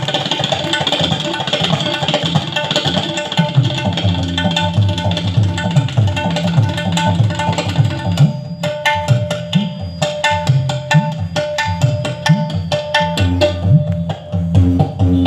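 Tabla solo played at speed: dense strokes on the right-hand drum ring out while the bass drum's pitch glides up and down under them. About eight seconds in, the strokes become sharper and more separated.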